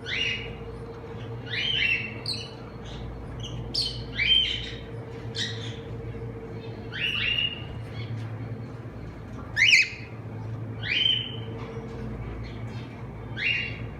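Cockatiels calling: about ten short, rising squawks, a second or two apart, the loudest near the middle. A steady low hum runs underneath.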